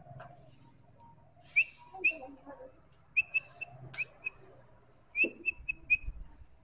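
White-rumped shama giving short, clipped whistled notes, a couple singly and then in quick runs of three to five, with a sharp click about four seconds in.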